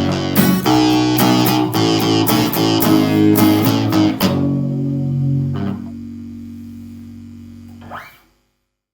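Guitar-led instrumental music: busy, quick notes that give way about four seconds in to a held chord fading out. Two brief plucked notes sound over the chord, and the track cuts to silence near the end.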